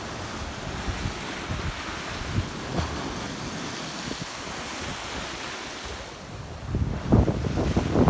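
Small sea waves washing and lapping over the shallows, a steady surf hiss. About seven seconds in it turns louder and gustier: wind buffeting the microphone with waves splashing over a concrete slipway.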